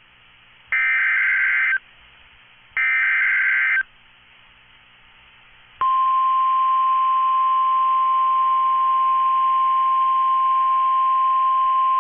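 Emergency Alert System SAME header from a NOAA Weather Radio broadcast coding a Special Marine Warning: two harsh one-second bursts of digital data tones with a second's pause between them, the end of the three-burst header. About six seconds in, the steady single-pitch 1050 Hz NOAA Weather Radio warning alarm tone starts and holds.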